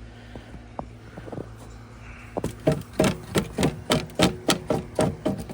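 Snow being swept off a chair in quick scraping swipes, about three a second, starting about two seconds in, over a faint steady hum.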